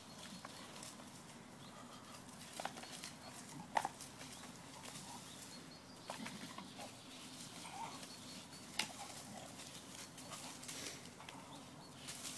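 Dog jumping at and tugging a rope toy hung from a tree: scattered scuffs and rustles of paws on dry leaves and dirt, with a few sharp knocks, the loudest about four seconds and about nine seconds in.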